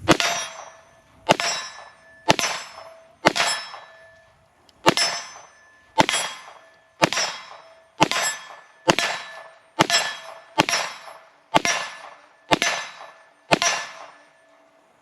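Fourteen pistol shots at about one a second, each followed by a metallic ring from a struck steel target, the ring fading before the next shot.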